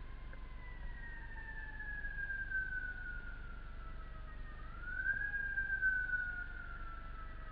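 Emergency vehicle siren wailing in a slow cycle: the pitch falls steadily for several seconds, sweeps quickly back up a little under five seconds in, then falls again.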